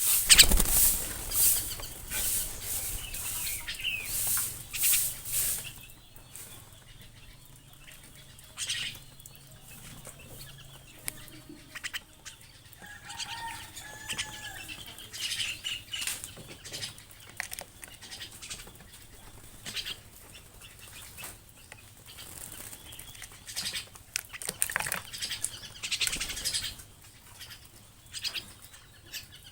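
Bursts of rustling and scraping noise, densest and loudest in the first several seconds and then sparser, with a few faint bird chirps about halfway through.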